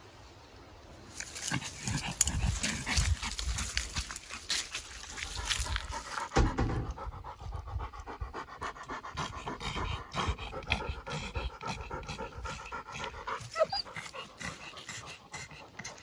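Footsteps crunching through dry fallen leaves for the first few seconds, then a dog panting hard in a quick, steady rhythm.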